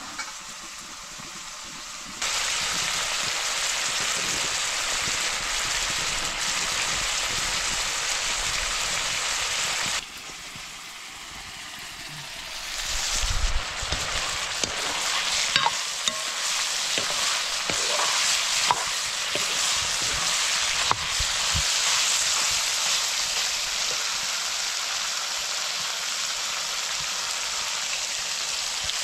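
Chayote pieces sizzling in hot oil in a wok, stirred with a metal ladle. The sizzle starts abruptly about two seconds in and drops away at ten seconds. It comes back near thirteen seconds with the ladle scraping and knocking against the pan.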